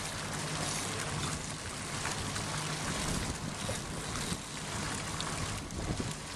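Steady wind and sea noise on board a fishing boat, with a low steady motor hum underneath.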